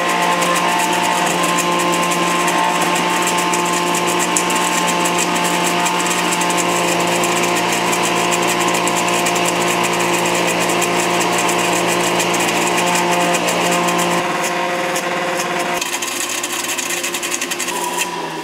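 Countertop blender motor running steadily as clarified butter is drizzled in through the lid opening, emulsifying egg yolks into hollandaise. Its tone shifts a few seconds before the end, then the motor stops.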